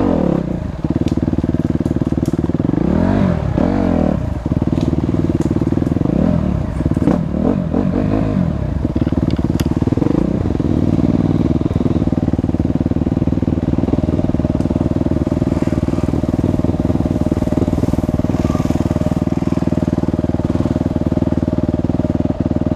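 Enduro dirt bike engine running as it is ridden along a forest trail, the revs rising and falling several times in the first ten seconds or so, then holding steady.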